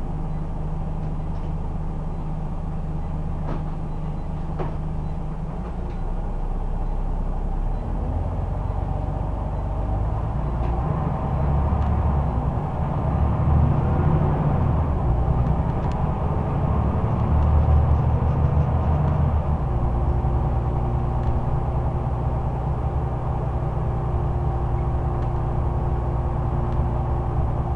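Scania Omnicity bus's diesel engine heard from inside the passenger saloon, running as the bus drives. It grows louder and busier from about six seconds in, is loudest between about twelve and nineteen seconds, then settles into a steadier note.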